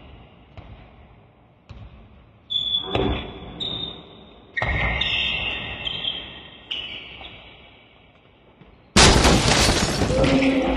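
Indoor basketball game sounds in an echoing hall: scattered ball bounces and thuds, then a sudden loud noisy stretch starting about nine seconds in.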